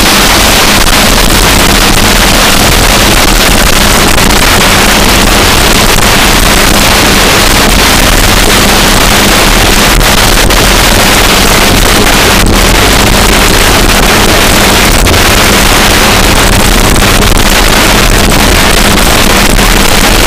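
Wind blasting over an action camera's microphone on a bicycle descending at over 50 mph: a very loud, steady rush of noise that never lets up.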